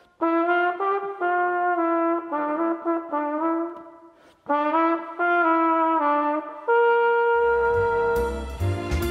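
Solo trumpet playing a melody in short phrases, with a breath about four seconds in, then holding a long note. Near the end a dance-band recording with bass and drums comes in under it.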